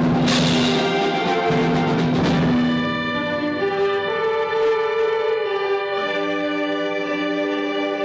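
Middle-school concert band playing. A loud full-band passage with a percussion crash near the start gives way, about three seconds in, to softer sustained chords.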